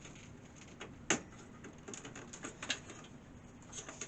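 Small plastic clicks and taps of power-supply cable connectors being handled and pushed into place, with one sharper click about a second in.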